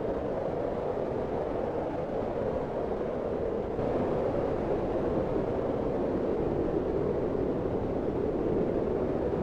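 Strong snowstorm wind blowing steadily, a dense low rushing without whistles or separate gusts, stepping slightly louder about four seconds in.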